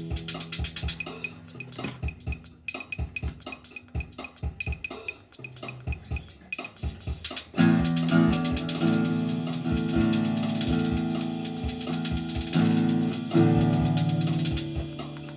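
Instrumental music with a steady drum beat under sustained chords. A loud new chord comes in about halfway through and again near the end.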